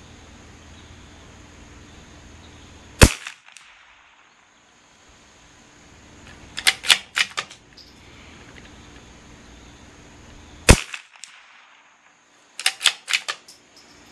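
A CZ 457 bolt-action .22 LR rifle fired twice, about seven and a half seconds apart. A few seconds after each shot comes a quick run of metallic clicks as the bolt is worked to eject the case and chamber the next round.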